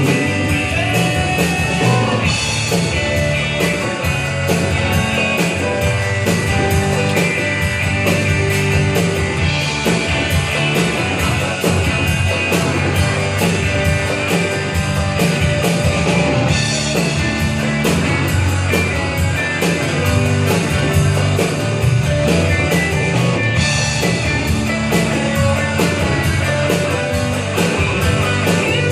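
Live band playing an upbeat rock-style song with guitar and a steady drum beat, mostly instrumental.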